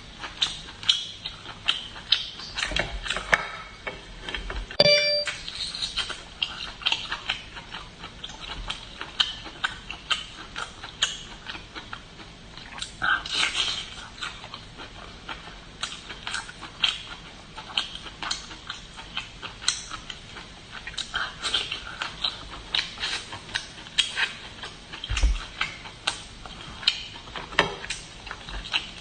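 Close-miked eating sounds from a person eating garlic Boston lobster: wet chewing with many small irregular clicks and smacks. There is a brief squeak about five seconds in.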